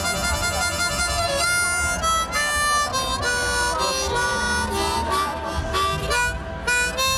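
Harmonica played with both hands cupped around it: a run of held notes and quick note changes.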